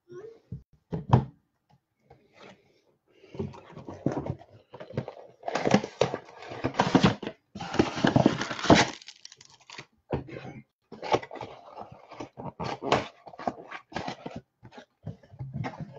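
Rustling and crinkling of packaging being handled, in irregular bursts with a few sharp clicks, heaviest from about five to nine seconds in.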